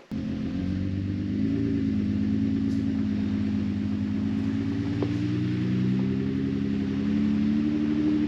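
A vehicle engine running steadily at low speed, its low hum drifting slightly up and down in pitch.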